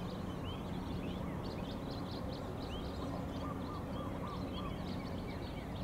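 Many small birds chirping, with a run of about five short calls a little past the middle, over a steady low drone from the airfield.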